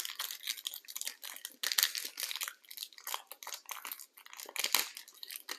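Crinkly packaging being handled and torn open to get at a pair of magnet cards: a dense run of crackles and rustles.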